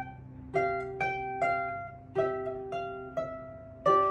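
Harp played solo: a steady run of plucked notes, about seven in four seconds, some struck as two-note chords, each left ringing and fading under the next.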